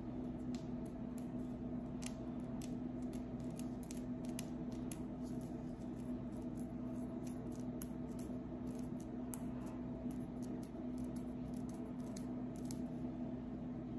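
Long fingernails scratching at a scalp through the hair, scraping dandruff flakes loose. It makes irregular crisp scratchy ticks, several a second, over a steady low hum. The ticks stop near the end.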